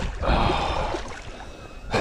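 A big bass thrashing and splashing at the water's surface beside the boat while being played on the line. The splash comes about a quarter second in and dies away over about a second, with low wind rumble underneath.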